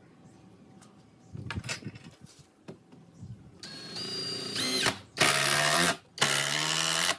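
Handheld electric power tool: a few knocks, then its motor whines up in pitch and runs in two bursts of about a second each, the second ending abruptly.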